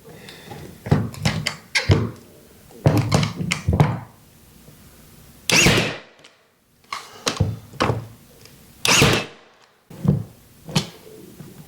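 Ryobi P322 cordless 18-gauge brad nailer driving 1 3/4-inch nails through baseboard trim into the wall studs. There are about ten sharp shots at uneven intervals, the loudest about five and a half seconds in.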